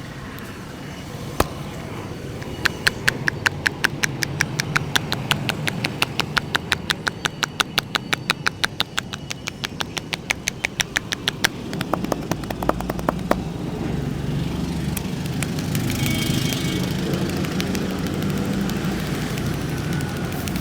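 Rapid, even hand taps of a head massage, about five a second for some ten seconds, then stopping. Underneath runs a steady hum of street traffic, which grows louder after the tapping stops.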